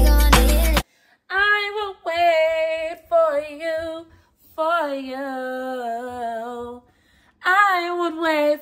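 Background music cuts off under a second in. Then a woman sings unaccompanied in several short held phrases with brief pauses between them.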